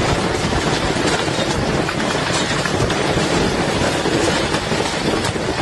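Torrential rain mixed with hail pelting down, a steady dense wash of noise sprinkled with small sharp hits of stones striking the ground and the car.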